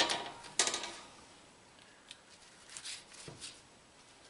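Muffins being lifted out of a metal muffin tin with a spatula and set down on a wire cooling rack: short scrapes and clicks, loudest in the first second, then a few fainter ones.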